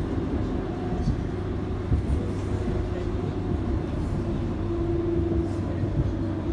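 Cabin noise of a STIB T3000 low-floor tram (Bombardier Flexity Outlook) running along the street: a steady rumble of wheels on rails with the traction motors humming. A motor whine grows stronger about two-thirds of the way through.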